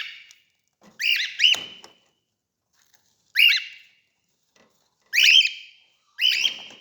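Cockatiel giving a series of short, shrill, rising calls, one every second or so.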